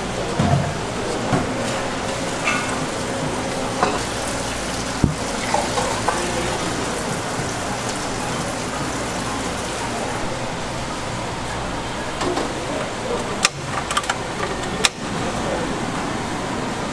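Hot water running from a steel water-boiler tap into a small metal ramen pot over a steady hiss, with clinks of metal pots and a few sharp knocks near the end.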